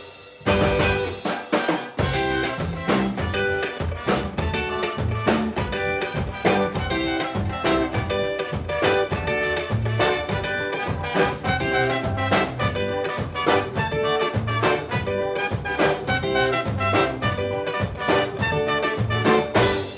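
A band with horns and a drum kit playing an up-tempo tune to a steady beat, which gets fully under way about two seconds in.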